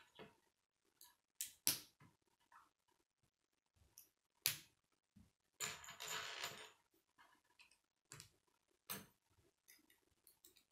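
K'nex plastic rods and connectors clicking as they are snapped together by hand: several sharp separate clicks, and around the middle a longer stretch of plastic parts rattling and rubbing.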